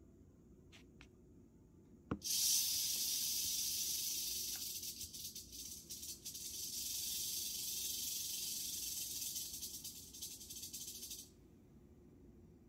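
Western diamondback rattlesnake rattling its tail: a high buzz that starts suddenly about two seconds in, right after a short click. It wavers in strength and cuts off about nine seconds later.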